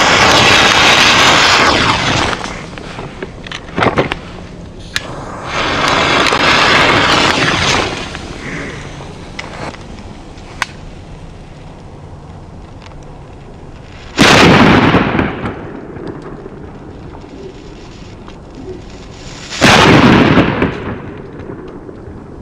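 Two Pirato match-head firecrackers bang about five and a half seconds apart, each with a short echoing tail. Before them come two loud stretches of hissing, each about two seconds long.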